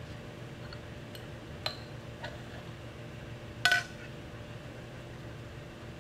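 A light clink of glassware about three and a half seconds in, with a few faint ticks before it, over a steady low room hum.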